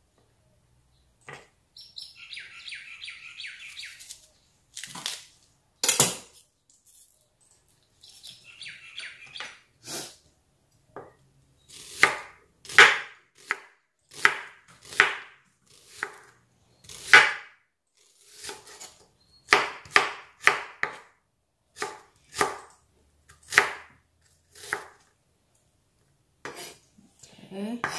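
Chef's knife slicing an onion on a wooden cutting board: a row of separate knocks as the blade meets the board, sparse at first and then about one a second through the second half. Bird chirps twice in the first ten seconds.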